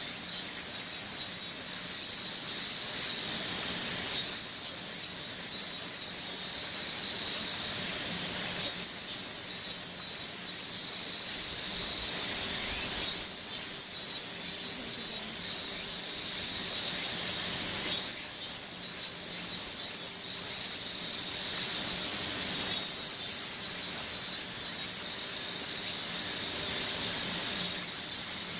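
Cicadas singing: a steady high-pitched buzz with a louder pulsing phrase that comes back about every four to five seconds.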